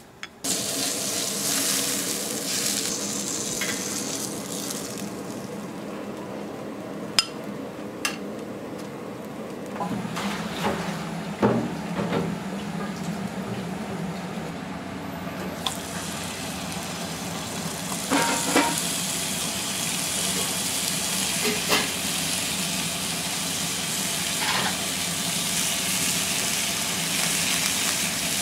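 Frying pan on a gas burner in a restaurant kitchen, oil sizzling steadily with sharp metal clinks of utensils against the pan now and then. A steady low hum joins about ten seconds in, and the sizzling grows louder from about halfway through.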